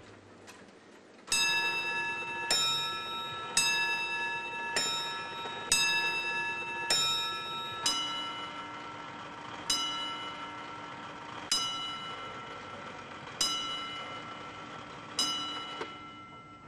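A clock striking on bells: six quick chime strikes about a second apart, then five slower strikes of a lower tone about two seconds apart, each ringing on.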